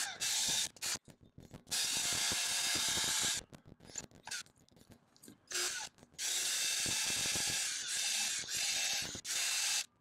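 Cordless drill spinning a diamond hole saw into wet brick, sped up eightfold, so it comes as a high, hissing whir that starts and stops several times in choppy stretches.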